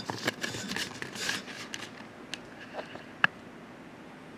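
Handling noise from a hand-held camera being carried into a room: light rustling and small clicks, with one sharp click about three seconds in, then only a low room hiss.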